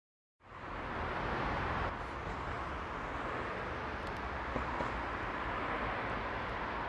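Steady background noise of city traffic, starting a moment in, with a few faint clicks.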